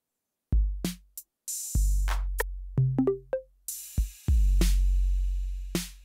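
Individual sounds from a Maschine trap drum kit triggered one at a time from the piano-roll keys: long, deep bass-drum booms, short sharp hits and clicks, a few short pitched blips and two bright cymbal-like washes.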